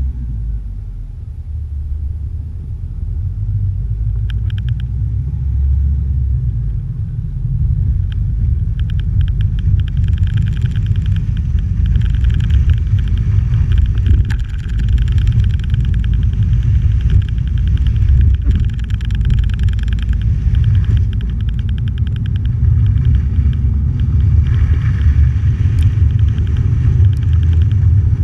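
Moving vehicle heard through an outside-mounted action camera on a snowy road: a heavy low rumble of wind and running. From about eight seconds in, a fast, fine rattling runs over it.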